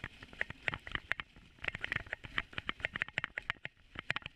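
Dog sled rattling and creaking as it runs over a snowy trail: a quick, irregular run of clicks and knocks.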